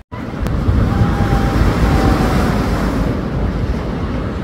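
Ocean surf breaking and washing up the beach, a steady loud rush, with wind buffeting the microphone.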